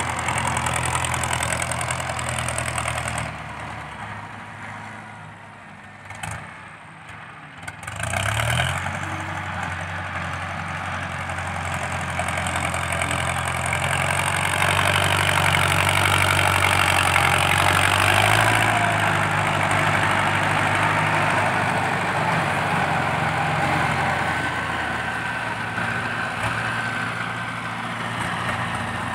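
Ford 6640 tractor's diesel engine running with a loud exhaust while it pushes soil with its front blade. The engine falls quieter for a few seconds, revs up about eight seconds in, and then runs hard under load, loudest around the middle.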